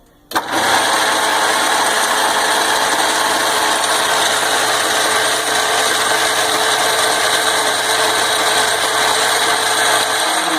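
Vintage Atlas metal lathe, driven by its single-phase 110-volt motor through a belt, switched on with a click and running steadily while it takes a cutting pass on a drill bit's shank. It starts to wind down at the very end.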